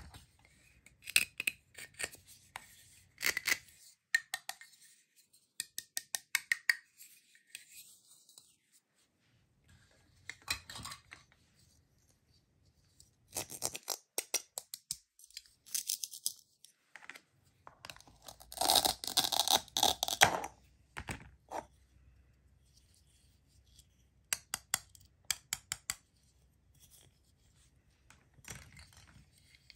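Plastic toy food handled on a plastic cutting board: scattered clicks and knocks of hard plastic pieces, with short ripping sounds as the hook-and-loop fastened halves are pulled apart. The longest and loudest rip comes about two-thirds of the way in.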